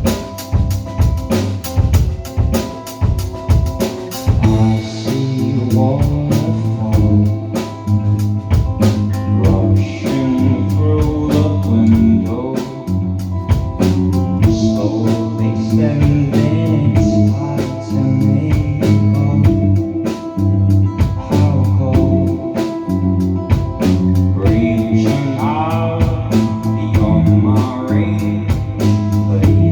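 Live rock band playing: a singer over drum kit, bass and guitar. The drums lead alone for the first few seconds, then the vocals come in.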